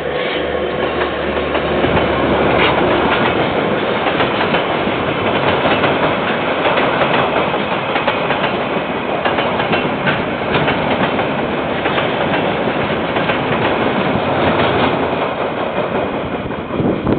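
Diesel-hauled KiwiRail freight train passing close by. The locomotive's engine drone is heard at the start, then the container wagons' wheels clatter steadily over the rails, easing off just before the end.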